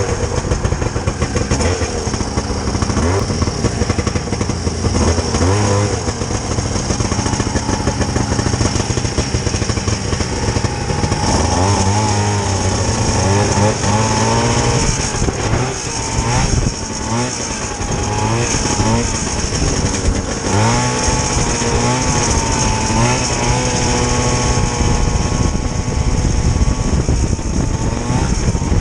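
Vintage two-stroke snowmobile engine running, its pitch rising and falling again and again as it is revved up and down.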